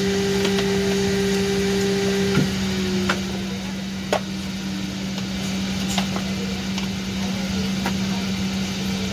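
Steady hum inside the cabin of a parked Boeing 777-200 during boarding, with its engines not yet started. A higher tone in the hum fades and drops slightly in pitch a couple of seconds in, and a few sharp clicks and knocks stand out over the hum.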